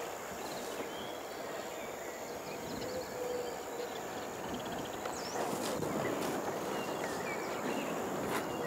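Outdoor ambience of a cattle pen: a steady background hiss with a few faint short high chirps and a few soft clicks.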